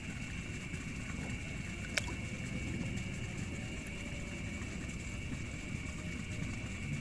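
A steady chorus of night insects (crickets) sings over a low, continuous rumbling noise from an arm working in shallow muddy water. A single sharp click comes about two seconds in.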